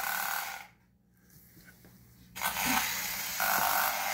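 Battery-operated bump-and-go pirate ship toy running, its geared mechanism making a steady rattling creak meant to sound like creaking boards. The sound cuts out about half a second in and starts again about two and a half seconds in.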